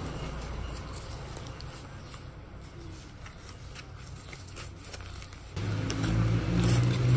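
Crinkling and rustling of a packable backpack's thin, light fabric as it is pulled out of its stuff sack and handled. About five and a half seconds in, a louder low hum with steady tones cuts in suddenly.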